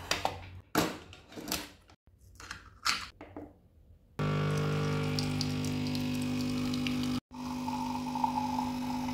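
Coffee machine being used: a few clicks and knocks as a ceramic mug is set under the spout and the machine is handled, then, about four seconds in, the pump starts abruptly with a steady buzzing hum. The hum runs on as coffee pours into the mug, with one brief break from a cut.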